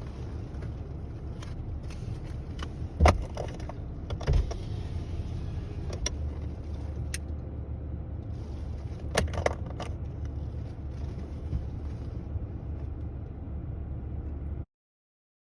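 Steady low rumble of a car heard from inside the cabin, with a handful of scattered clicks and knocks, the loudest about three seconds in and another just over four seconds in. The sound cuts out completely for about a second near the end.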